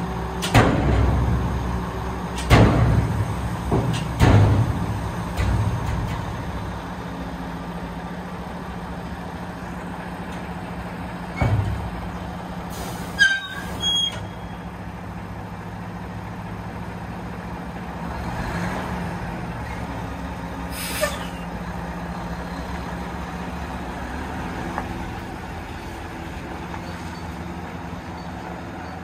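Mack dump truck's diesel engine running steadily while the raised dump bed comes down, with several heavy metal clunks in the first few seconds. There are sharp air-brake hisses about 13 seconds in and again about 21 seconds in, and the truck then moves off with the engine running.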